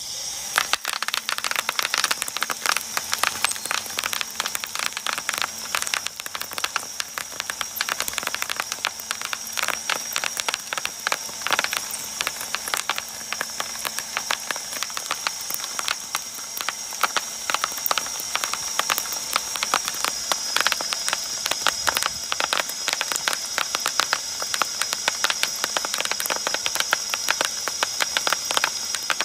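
Bubble wrap being shredded in a chain-driven twin-shaft shredder, its bubbles popping in a rapid, continuous crackle as the cutter discs chew through the strip, over a steady high whine from the machine.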